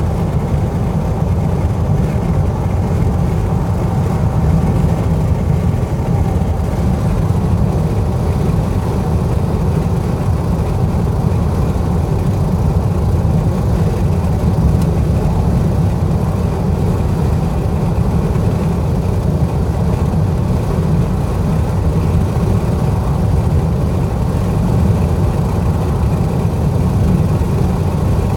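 Steady road and engine noise of a car cruising at highway speed, heard from inside the cabin as an even low rumble.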